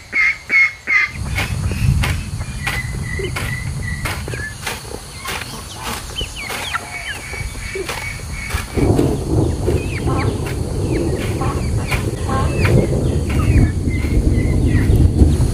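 Poultry calling: a few loud honks in the first second, then scattered chirps and clucks. Under them runs a low rumble that grows stronger about nine seconds in, with frequent sharp clicks.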